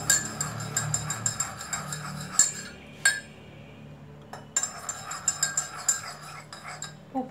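Metal spoon stirring salt into water in a ceramic mug, clinking repeatedly against the mug's sides, with a short pause about three seconds in.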